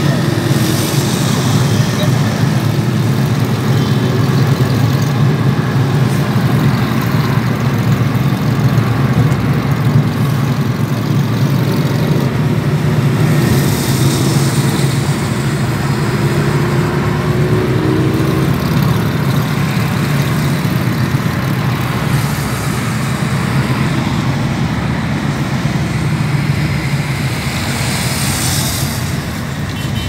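Steady low drone of engines and tyres from inside a moving car following a pack of Harley-Davidson motorcycles in traffic. A brief, slightly rising engine note comes in a little past the middle.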